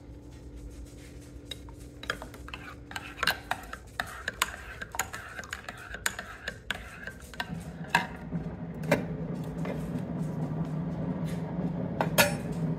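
Metal spoon stirring hot cocoa in a ceramic mug, clinking against the sides again and again. A steady low hum sets in about halfway through.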